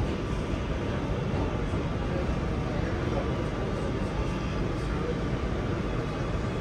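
Steady low rumble and hum inside an R211A subway car standing at a station with its doors open, with no sudden events.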